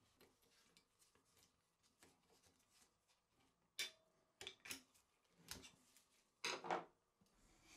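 Rusty steel coil spring being handled and unhooked inside the metal frame of an antique potato chip cutter: a few light metallic clicks and knocks, the loudest a short rattle near the end.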